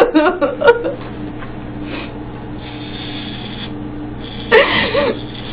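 Corded electric hair clippers buzzing steadily as they shave hair off a head, with a rasping cutting noise. A woman's crying breaks in during the first second and again briefly near the end.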